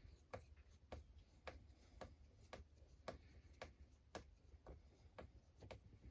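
Faint, evenly spaced sharp clicks, about two a second, like a small mechanism ticking over.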